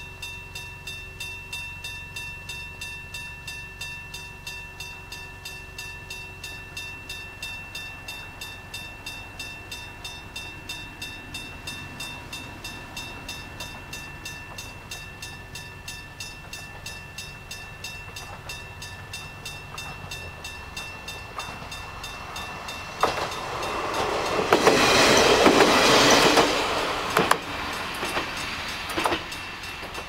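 Level-crossing electric bell ringing in steady, rapid strikes. About 23 seconds in, a Kominato Railway KiHa 200-series diesel railcar passes over the crossing, the loudest sound, its wheels clacking over the rail joints.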